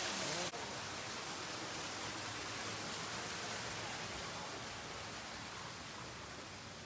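Artificial rock waterfall splashing into a pond: a steady rushing noise that drops a little about half a second in and then slowly fades.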